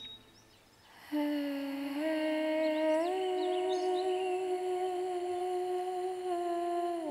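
Soft background music: a single sustained hummed note, starting about a second in, that steps up in pitch twice and drops back down near the end.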